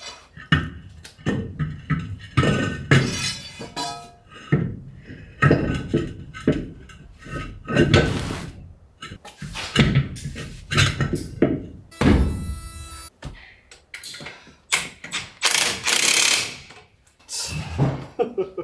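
Irregular heavy metal clanks and thunks as a steel truck wheel and tyre are handled and set on a manual tyre changer, with a ringing metallic clang about twelve seconds in.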